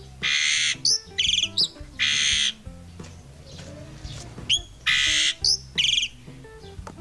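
Caged starling calling loudly: harsh, hissing screeches of about half a second each, alternating with short rattled runs of quick notes. The calls come in two bouts, the first at the start and the second a little over four seconds in, with faint background music underneath.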